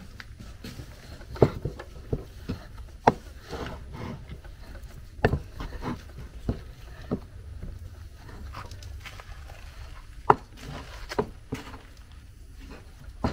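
Scattered sharp knocks and taps, irregular and about a dozen in all, over a steady low hum.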